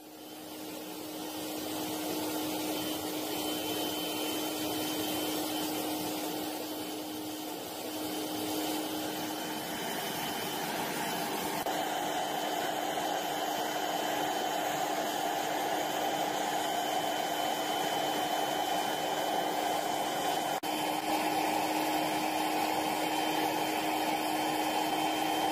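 Homemade gas forge running: a steady rush of burner flame and forced air, with a low steady hum and a faint high whine under it. It swells in over the first couple of seconds and grows a little fuller about halfway through.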